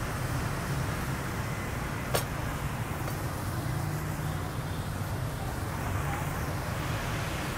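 Steady low rumble of street traffic, with one sharp click about two seconds in.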